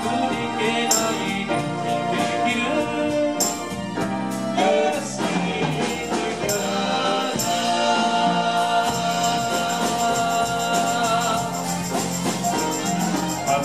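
A live band playing a song through a PA: electric keyboards and a drum kit, with cymbal crashes at about 1, 3.5 and 6.5 seconds in, and several voices singing together.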